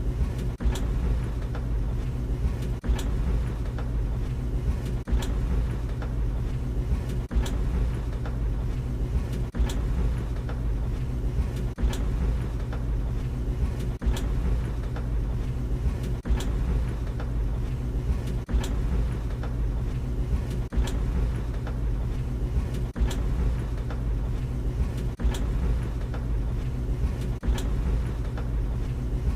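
Tumble dryer running with a steady low motor-and-drum hum. Sharp knocks come as the drum turns, a stronger one about every two seconds with lighter clicks between: the load tumbling and striking the drum.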